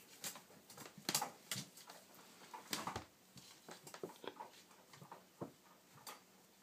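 A kitten's paws tapping and scuffling irregularly on a wooden floor as it plays, with sharper clicks about a second in and about three seconds in.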